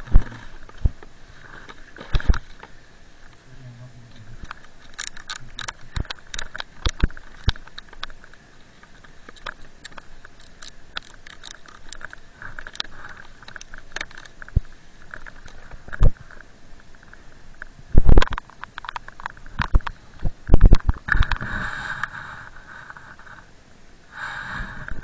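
Handling noise from an action camera on a snowboarder stopped in deep snow: irregular sharp clicks, knocks and scuffs as the camera and board shift against snow, with a few heavier thuds late on and a brief rushing hiss about twenty seconds in and again near the end.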